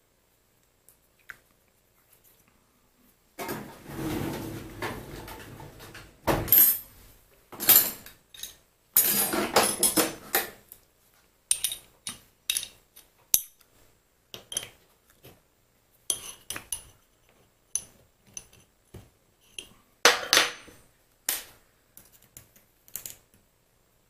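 Small steel lathe parts clinking, clicking and scraping as they are handled and fitted by hand during reassembly of the lathe apron, with a scraping stretch about three seconds in followed by a string of sharp metallic clinks.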